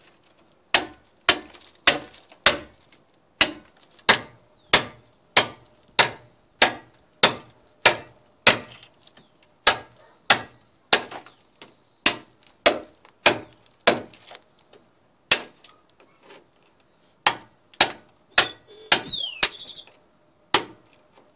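Hammer striking a steel cold chisel to chip out a channel in a concrete-block wall for a drain pipe: a steady run of sharp metal-on-metal blows, about one and a half to two a second, with a short pause a little after two-thirds of the way through.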